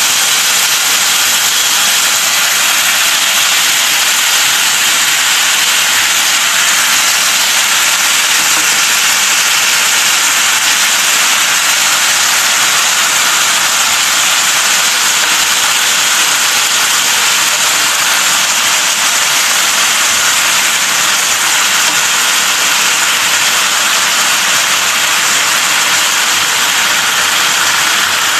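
Beef and vegetable stir-fry in black bean sauce sizzling on a preheated cast-iron sizzling platter: a loud, steady hiss.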